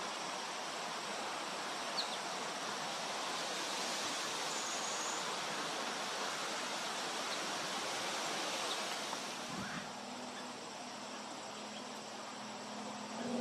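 Steady outdoor background hiss with a few faint, short bird chirps. About two-thirds of the way through, the hiss drops and a low steady hum comes in.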